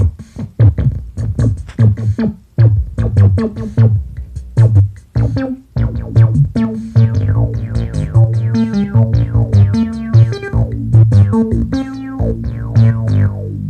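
Analog synthesizer jam: Moog Werkstatt and Mother-32 synths playing a fast repeating sequence of short bass and higher notes over analog drum machine hits.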